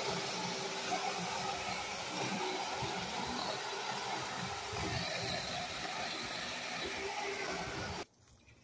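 Corded electric chainsaw running steadily as it cuts into a fallen tree limb, its chain dull enough that a new one is advised; the motor cuts off suddenly near the end.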